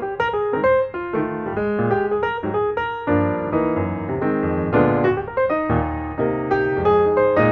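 Piano music: a continuous flow of notes, with lower notes sounding under a higher line.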